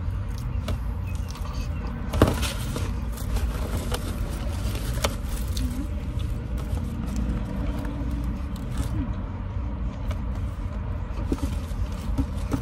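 Steady low rumble inside a car cabin, with scattered crinkles and clicks from a paper sandwich wrapper being handled; a sharp click about two seconds in.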